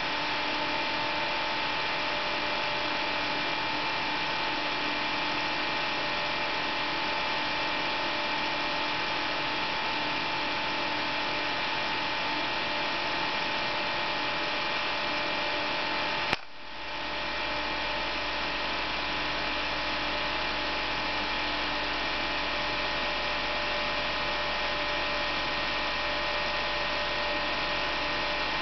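Electric cooling fan of a transmitting-tube setup running with a steady whir and a few steady whining tones. About sixteen seconds in there is a single sharp click, the plate supply being switched off, after which a low hum sets in beneath the fan.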